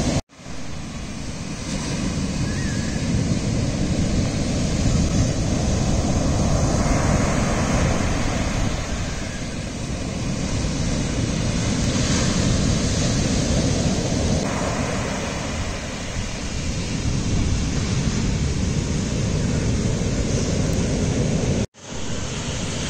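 Shorebreak waves breaking and surf washing up a sand beach: a steady, loud rushing with a heavy low rumble. The sound cuts out for a moment just after the start and again near the end.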